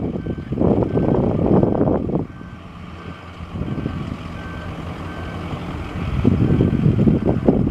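Wind buffeting the microphone in gusts at the start and again near the end. Between the gusts a distant piston engine hums steadily, under a faint high beep that repeats about twice a second.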